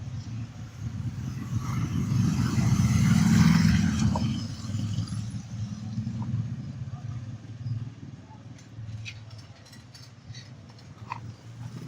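Low engine rumble of a passing motor vehicle, swelling to a peak about three and a half seconds in and then fading, with a few light clicks near the end.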